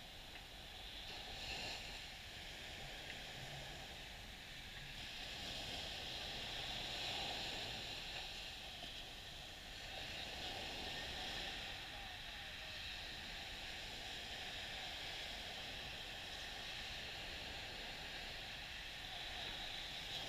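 Small, gentle ocean waves washing up on a sandy beach. The noise of the surf swells and eases every few seconds as each wave runs up and draws back.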